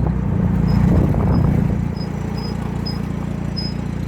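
Trike's engine running under way with road noise, a steady low drone that eases and gets quieter about two seconds in. Faint short high chirps recur about six times.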